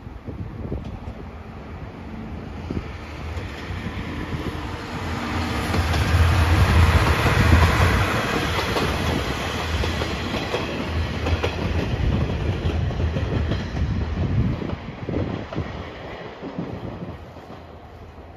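The Seto Ohashi Anpanman Torokko, a diesel railcar with an open trolley car, passing close by. Its rumble and clickety-clack over the rail joints build to loudest a little before the middle, then fade away toward the end.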